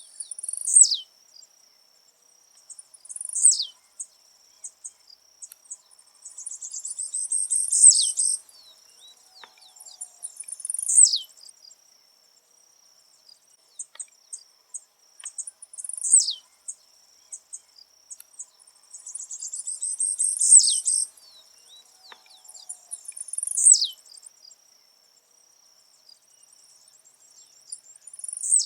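Blue-black grassquit (tiziu) singing its short, high note that drops steeply in pitch, repeated every three to four seconds; twice the note follows a longer buzzy chatter. A steady high insect drone runs underneath.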